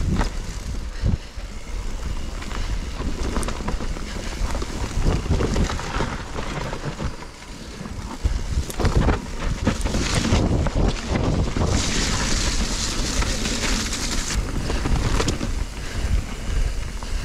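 Mountain bike riding down a wet dirt trail: wind buffeting the microphone, tyres rumbling over the ground and the bike rattling and knocking over bumps. A brighter hissing rush comes in for about two seconds past the middle.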